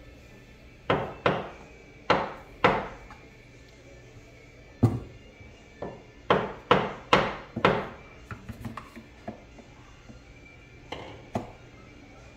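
Reximex Throne PCP air rifle being handled on a wooden workbench: a series of sharp knocks and clicks as its parts are fitted together and it is set against the bench, the loudest about five seconds in, with lighter clicks toward the end. Faint background music underneath.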